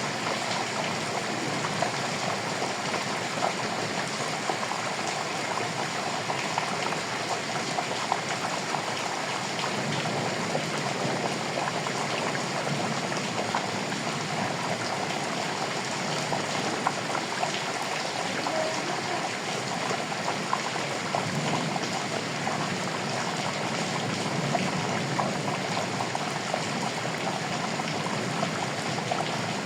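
Steady rain falling, a dense even patter of many drops.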